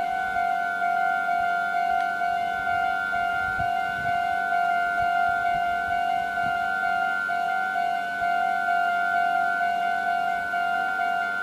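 Japanese railway level-crossing warning bell: an electronic ding repeating quickly and evenly, a few strikes a second, without a break.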